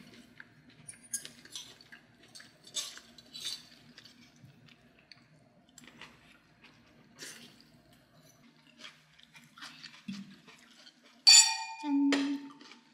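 Metal fork and spoon clicking and scraping against a ceramic plate as spaghetti is twirled and eaten, with a louder ringing clink about eleven seconds in.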